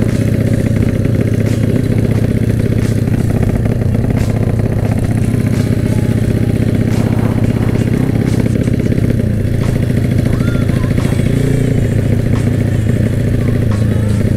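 Honda MegaPro motorcycle's single-cylinder four-stroke engine running steadily while the bike is ridden at an even speed, heard up close from the rider's seat.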